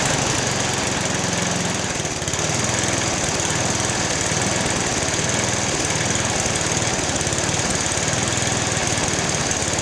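MTD Yard Machines snowblower's small single-cylinder engine running steadily just after a pull start, racing far too fast, revved way too high; the owner later finds the governor's maximum-speed screw cranked in.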